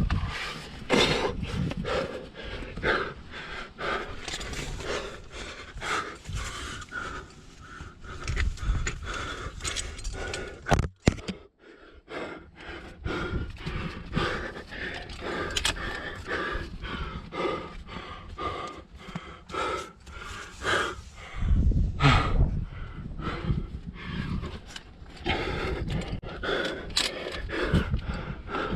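A climber's hard, rapid panting, breath after breath, with low rumbling knocks and scrapes, the loudest about two-thirds of the way through.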